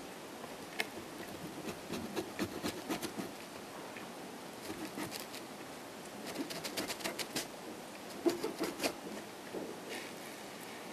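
Close-up chewing of a salami pizza slice: several runs of small quick clicks from the mouth, with pauses between them.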